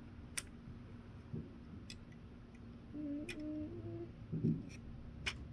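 Plastic Lego bricks being handled and pressed into place, giving a few sparse, faint clicks. About three seconds in, a person hums a short run of notes.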